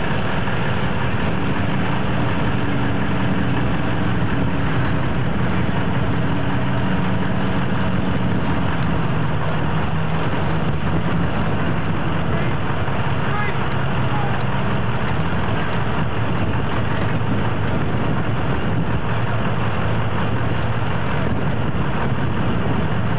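A vehicle engine running steadily close by, with wind buffeting the microphone.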